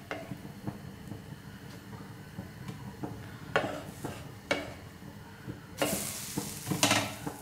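Wooden spatula scraping and knocking against a nonstick tawa as a cooked neer dosa is lifted off the pan, over a faint sizzle. There are a few short scrapes in the middle and a longer, louder scrape near the end.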